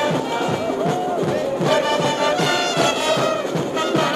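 Music with a steady, quick beat.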